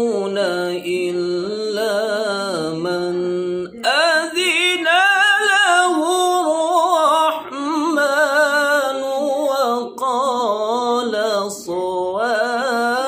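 A man's unaccompanied melodic Quran recitation (tilawah), long held notes with wavering ornaments sung in phrases, with short breath pauses about 4, 7.5, 10 and 11.5 seconds in.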